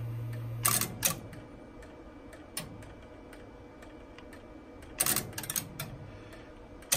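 Dial tone from the butt set's speaker cuts off about half a second in as dialling begins, followed by sharp relay clicks from the 1961 Western Electric 6A dial intercom: two single clicks near the start, one a little later, and a quick run of clicks about five seconds in, as the system takes the dialled digits and sets up the call to station 22.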